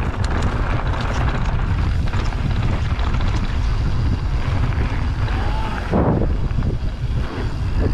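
Wind rushing over the helmet-camera microphone and the knobby tyres of a Radon Jab enduro mountain bike rolling fast over dirt and gravel on a downhill trail, with short knocks and rattles from the bike over bumps in the first couple of seconds.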